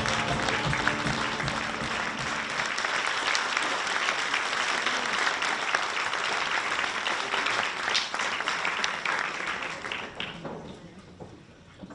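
Audience applauding, dying away about ten seconds in.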